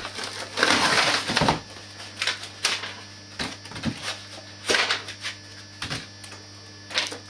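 Plastic packaging rustling and crinkling as a laptop is unpacked from its box: one loud rustle about a second in, then scattered softer crinkles and clicks.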